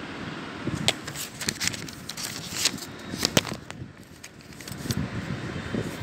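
Handling noise: a run of sharp clicks and light taps for about three seconds over a steady background hiss, then just the hiss.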